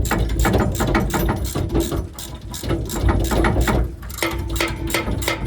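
Ratchet wrench clicking quickly and repeatedly as a bolt is turned, with a steady low hum joining in about four seconds in.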